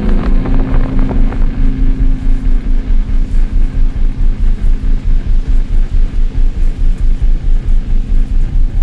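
Dark ambient background music: a low drone with a deep bass that swells and fades about four or five times a second, under a steady hiss.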